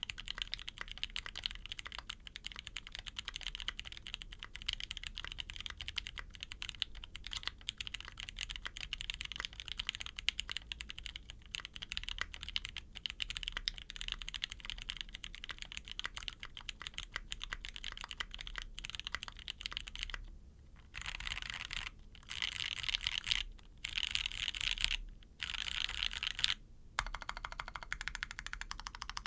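A GOS 65% custom mechanical keyboard with lubed, filmed Penguin switches on a brass plate and GMK keycaps is being typed on, with steady, fast keystroke clacks. About two-thirds of the way in, the typing breaks into short dense flurries of about a second each, with brief pauses between them.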